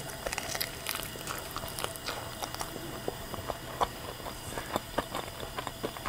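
Close-miked chewing of crispy fried chicken: irregular crunches and small crackles, thickest in the first second and sparser after.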